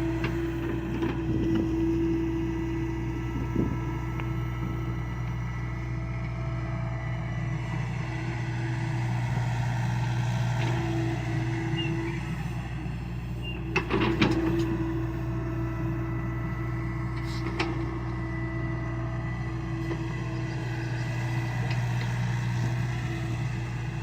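John Deere excavator's diesel engine running steadily as the machine works, with a few sharp knocks about halfway through, the loudest near the middle.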